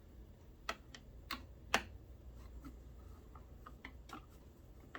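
A few sharp, irregular clicks and taps, the loudest a little under two seconds in, from the sewing machine and its monogrammer attachment being handled and set up, over a faint steady low hum.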